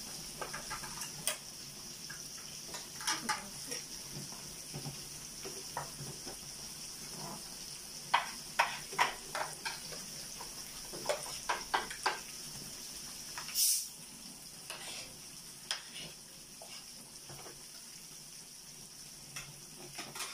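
Pork belly sizzling on a tabletop Korean barbecue grill pan, a steady hiss, with utensils clicking and clinking against the pan and bowls as food is served. About two-thirds through there is a brief, louder burst of hiss.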